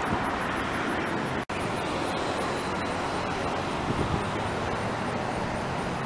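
Steady road traffic noise with no clear tones, cut off for an instant about a second and a half in.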